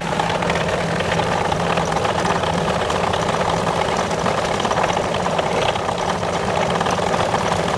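John Deere 2720 compact tractor's three-cylinder diesel engine running close by with a steady clatter as the tractor pulls up to the front-mount broom; the sound jumps up abruptly at the start.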